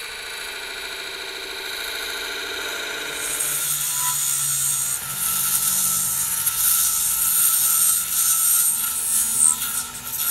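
Ebony turning on a wood lathe: first a buzzing tone as the points of a pair of dividers score the spinning end face. About three and a half seconds in, it gives way to a loud hissing scrape as a metal chisel cuts into the end grain, with a few sharp crackles near the end.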